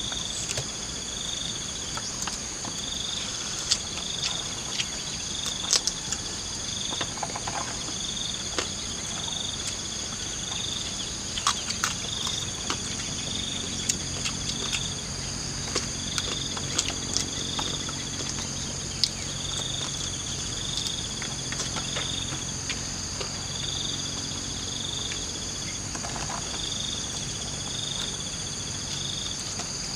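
Insects chirring steadily, one strand pulsing in short repeated bursts roughly every second over a continuous higher whine. Scattered small clicks and rustles of hands picking food off banana leaves, and a faint low hum joins about halfway through.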